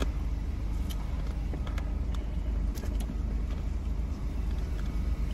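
Steady low rumble inside a parked car's cabin, as of the engine idling, with a few faint scattered clicks over it.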